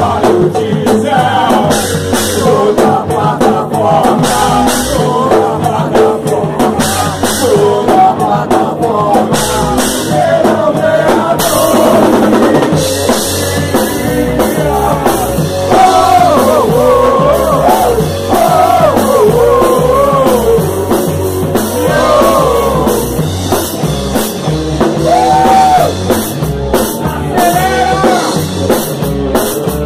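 Rock band playing a song, a singer's voice over drum kit, bass and guitar.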